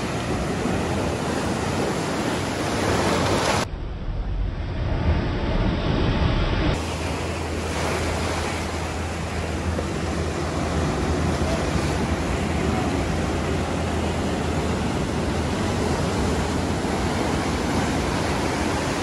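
Shore-break waves crashing against a rock ledge and whitewater washing over a rocky beach: a steady rush of surf.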